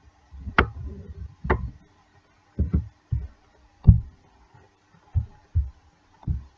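Desk and computer-mouse handling noise picked up by the recording microphone: about eight irregular dull thumps and clicks as the mouse is worked, over a faint steady hum.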